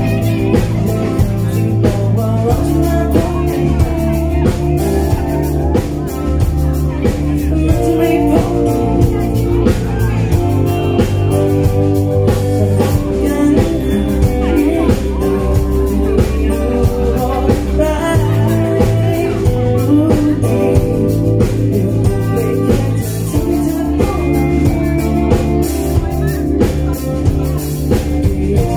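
Live pop band performance: a male lead singer sings with a female singer, backed by electric guitar and keyboard, with a steady beat.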